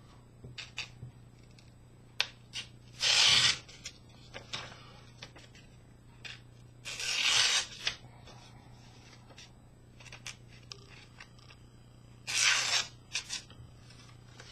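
Sharp folding-knife blade making three slicing cuts through a thin material. Each cut is a short rasping swish under a second long, and small handling clicks fall between them.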